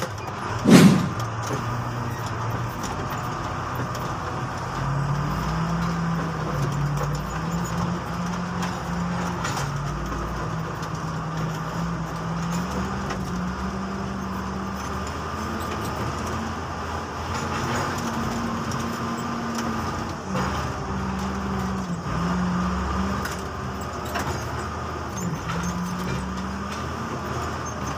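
XGMA motor grader's diesel engine running, heard from inside the cab, its speed rising and falling as the machine grades loose soil. A brief sweeping sound, the loudest thing here, falls in pitch about a second in.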